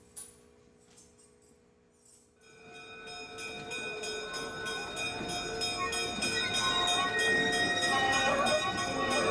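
A locomotive bell ringing in quick, regular strokes, swelling in from about two and a half seconds in with the running rumble of a train. The train is the Burlington Route E-5A diesel-electric locomotive 9911-A, rolling past at the head of the Nebraska Zephyr. A sharp click sounds near the start.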